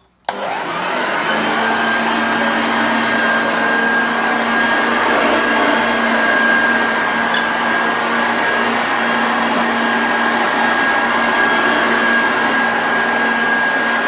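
A 1974 Hoover Junior 1346A upright vacuum cleaner with a 250-watt motor is switched on with a click about a third of a second in. It then runs steadily at full speed, with a constant hum and a thin, steady whine over the rush of air, while it is worked over a shag-pile rug.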